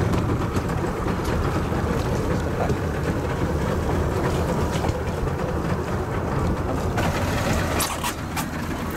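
Steady low rumble aboard a small fishing boat out on open water, with a few sharp clicks or knocks near the end.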